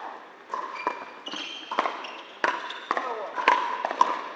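Pickleball paddles striking a hard plastic ball, a run of about six sharp pocks with a short ring, echoing in a large indoor hall.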